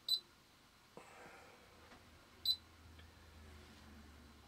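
Short, high beeps from a Hantek DSO2C10 digital oscilloscope's key beeper as its front-panel buttons are pressed: one right at the start and another about two and a half seconds later, with a faint click in between.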